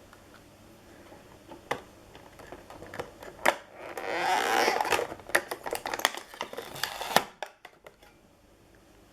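Hands handling a toy and its packaging: scattered sharp clicks and taps, with a louder rustling burst about four seconds in, then a quick run of clicks before it goes still.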